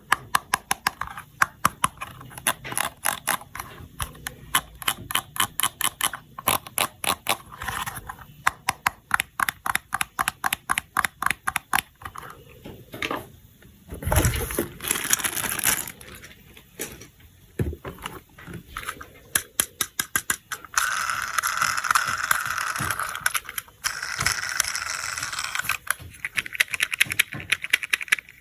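Small plastic toy parts being handled: rapid runs of light clicks and rattles, with a stretch of rustling about two-thirds of the way through.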